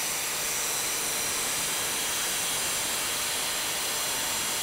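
Angle grinder with a 46-grit cutoff disc cutting a groove into cast iron, running steadily under load: an even grinding hiss with a faint high whine.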